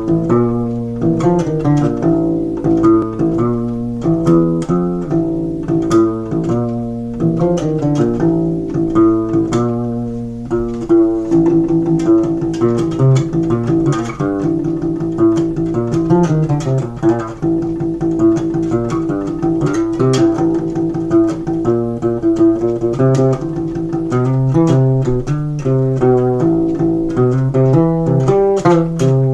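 Acoustic bass guitar played solo, a fast plucked heavy-metal bassline of repeating riffs.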